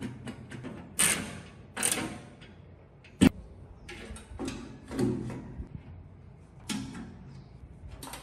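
Irregular handling noises: short scrapes and light knocks, with one sharp, loud clack a little over three seconds in.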